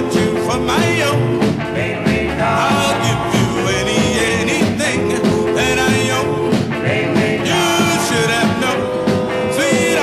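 1956 doo-wop record: a vocal group singing held close harmonies over a rhythm-and-blues band with a steady beat.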